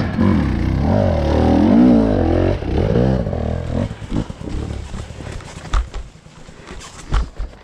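Off-road motorcycle engine revving hard in rising and falling surges as the bike climbs, then fading away after about three and a half seconds. A few scattered knocks and clicks follow.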